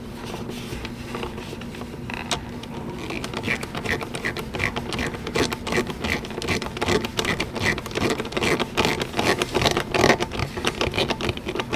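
Worm-drive hose clamp being tightened on a toilet water valve's supply hose with a socket on a screwdriver-handled driver: a run of rapid small clicks that gets denser after a couple of seconds, over a low steady hum.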